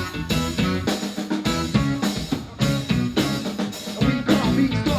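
Performance music without vocals: a steady drum-kit beat of snare and kick drum under repeating bass notes and other instruments.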